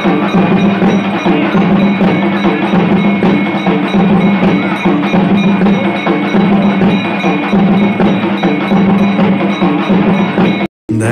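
Temple bells and metal percussion of a Kali puja struck rapidly and without pause, a loud, steady clanging of several strokes a second over a low drone; it breaks off for an instant near the end.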